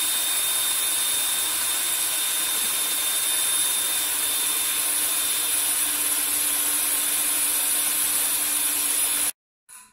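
Steady loud hiss and whine of a motor-driven blower-type shop tool running without a break, a low hum joining about six seconds in; it cuts off abruptly near the end.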